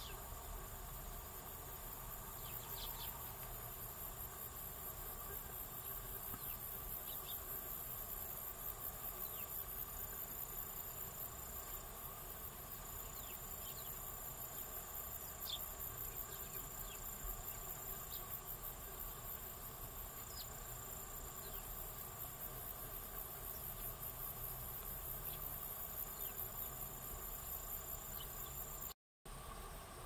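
A steady chorus of insects stridulating: a high, fast, evenly pulsing trill, with a few faint short high chirps scattered through it. It drops out for a moment near the end.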